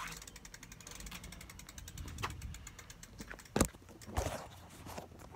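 Bicycle freewheel hub ticking rapidly as the wheel coasts, fading over the first couple of seconds. After it come a few knocks, the loudest about three and a half seconds in, as the phone is handled on its bungee-cord mount on the bike.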